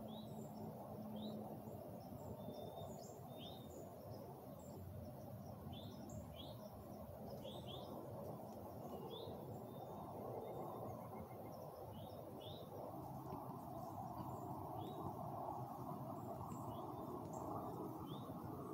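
Small birds giving short, scattered chirps in winter woods, over a faint steady low background hiss.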